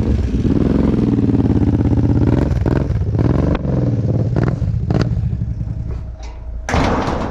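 Kawasaki KFX 700 ATV's V-twin engine running, with its drone easing off about six seconds in, a few light knocks, and a short loud noise near the end.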